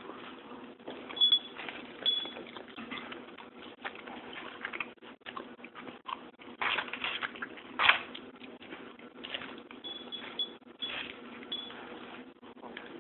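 A cat eating from a small bowl, with scattered clicks, taps and chewing sounds and a few louder knocks, the loudest about eight seconds in. A faint steady hum runs underneath.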